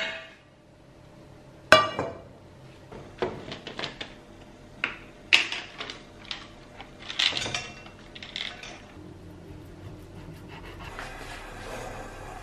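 Scattered clinks, knocks and short rattles of kitchen handling, with dry pasta tipped into an enamel saucepan, then a steady faint hiss near the end.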